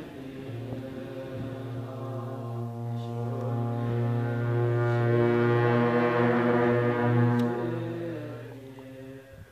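Low, steady drone with rich overtones from Tibetan Buddhist ritual music, starting about half a second in and fading away near the end.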